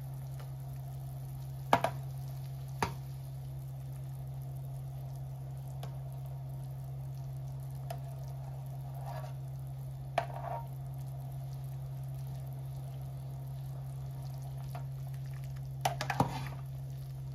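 Pot of chicken soup simmering and being stirred, over a steady low hum. Sharp metallic clinks of a metal bowl and ladle against the steel pot come twice about two seconds in, once near the middle, and several times near the end.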